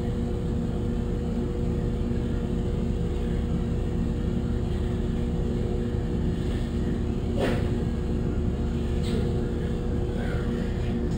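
Steady motor drone with a low hum. A sharp click comes a little past halfway, and a fainter one shortly after.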